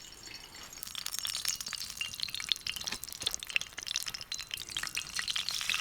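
Dense crackling and small clinks, beginning about a second in: food frying in a pan over a campfire.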